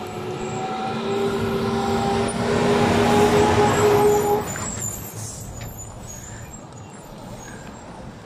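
Heavy semi-trailer truck driving past at close range, its diesel engine running with a slightly rising note and its tyres rolling on the gravel shoulder. The sound is loudest about three to four seconds in, then drops away quickly as the truck moves off.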